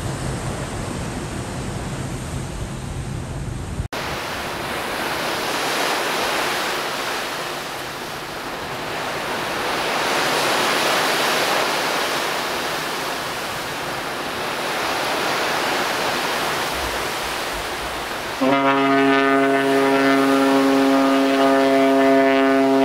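Wind and sea noise on a ferry's open deck, swelling and fading. About eighteen seconds in, a ship's horn starts a loud, steady, deep blast that is still going at the end. It is the horn signal given as two ferries pass each other at sea.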